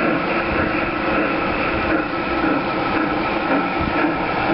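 Steam-locomotive sounds from the Phoenix sound system of a Bachmann K-27 large-scale model locomotive, running steadily as the engine moves slowly along the track toward the camera.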